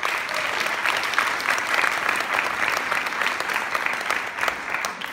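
Crowd applause: many people clapping at once, a dense steady patter that dies away near the end.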